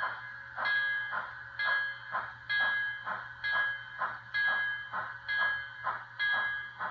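ESU LokSound decoder sound from an N scale Kato 2-8-2 steam locomotive running slowly, heard through the model's small speaker. Steady exhaust chuffs come about two a second, with a ringing tone repeating about once a second over a faint low hum.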